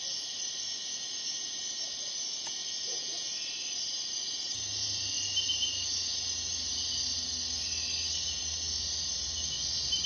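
Steady chorus of night insects, crickets or katydids, making a dense high-pitched shrill with no break. A low hum comes in underneath about halfway through.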